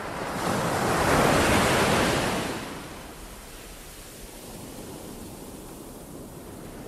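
Ocean waves breaking and washing in: a swell of surf noise that peaks about a second or two in, then eases to a steady wash.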